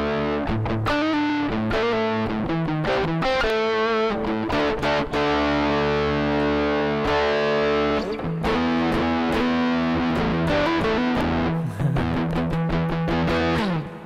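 Electric guitar played through a Harley Benton American TrueTone overdrive and amp-sim pedal with added reverb: distorted, ringing chords in a classic-rock crunch tone. Near the end a note slides down and the playing fades out.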